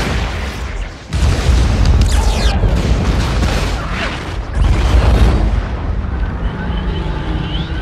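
Cinematic explosion effects of a city being blown apart: deep booming blasts and heavy rumbling. Fresh surges come about a second in and again about four and a half seconds in, and the sound trails off toward the end.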